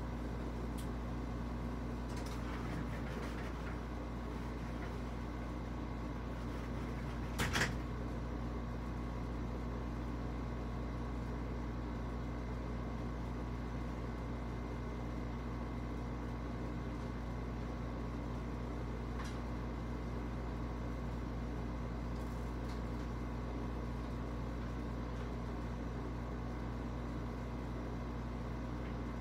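Steady low hum of a running machine such as a fan or air conditioner, with one short knock about seven and a half seconds in.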